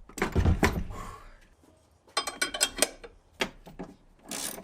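A car battery is set back into its tray with a heavy low thud, followed by scattered metallic clicks and knocks as it is positioned and its fittings are handled.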